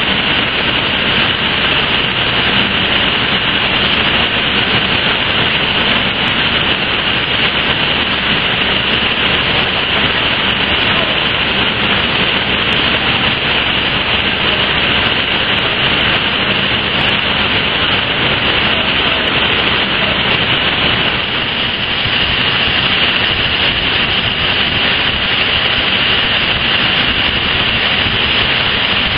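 Steady loud industrial roar, the din of a plant where molten metal pours from a tilted vessel, dipping slightly about two-thirds of the way through.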